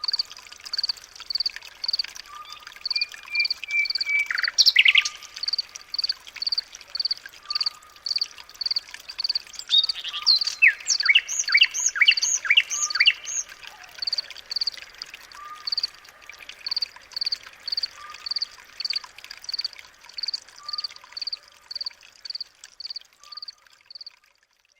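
Birds calling. A high, short note repeats evenly about one and a half times a second, with a lower call every couple of seconds and a flurry of chirps partway through. The sound cuts off suddenly near the end.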